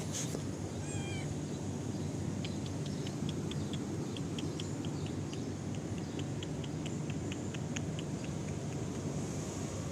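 A cat gives one short meow about a second in, followed by a run of soft, quick ticks at about three a second, over a steady low background rumble.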